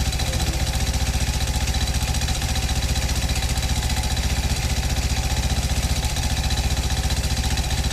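Engine idling steadily with an even, rapid pulsing beat; this is the engine being checked for a metallic knock.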